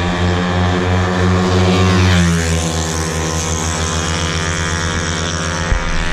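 Racing Yamaha Mio scooters' single-cylinder four-stroke engines at full throttle down a drag strip, a steady high-revving drone that drops in pitch about two seconds in as they pass.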